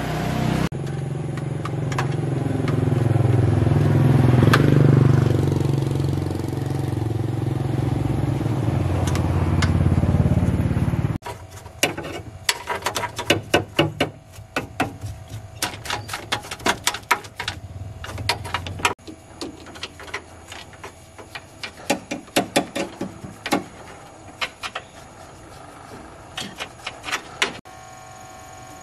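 A motor runs with a steady hum that swells about four seconds in and cuts off abruptly after about eleven seconds. Then come many irregular sharp clicks and knocks of hand tools working on metal.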